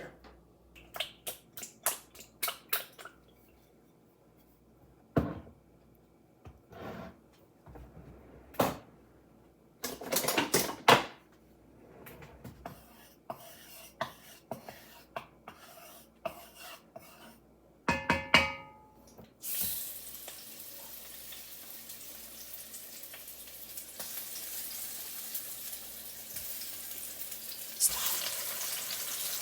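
Clatter of utensils and a pan being handled, scattered clicks and knocks, then pork chops going into a skillet of hot oil and sizzling steadily, the sizzle getting louder near the end.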